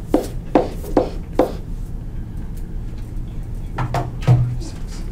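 A pen tapping against a writing surface as short tick marks are drawn one after another: several quick, light knocks in the first second and a half, then a few more about four seconds in.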